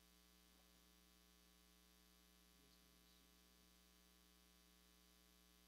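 Near silence, with a faint, steady electrical mains hum.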